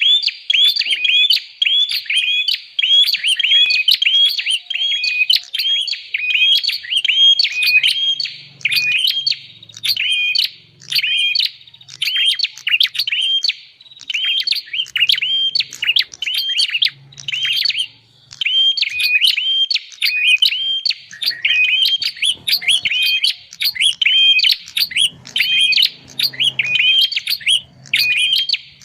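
Prinia (prenjak) song played as a bird-trapping lure call: short, sharp chirps repeated over and over, about two to three a second, with no real pause.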